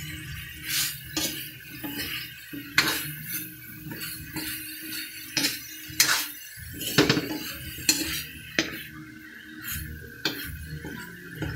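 A cooking utensil scraping and knocking against a pan in irregular strokes as sliced bitter gourd and pork are stirred while sautéing.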